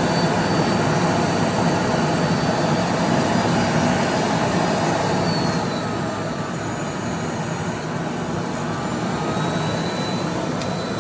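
Aspiron 1200 W bagless canister vacuum cleaner running at full power just after switch-on: a steady rush of air with a high motor whine. About halfway through it gets a little quieter and the whine shifts slightly in pitch.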